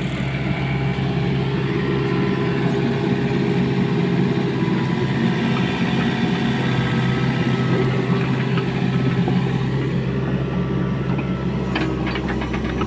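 Kobelco SK50P mini excavator's diesel engine running steadily as the machine works soil, with a few sharp clanks near the end.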